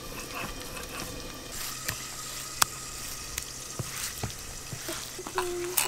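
Potatoes frying in hot mustard oil in a lidded wok: a steady sizzle with a few sharp pops.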